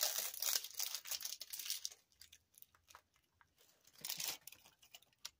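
Packaging being crinkled and torn off a small eyeshadow quad, dense crackling for the first two seconds, then scattered ticks and a second short burst of crinkling about four seconds in.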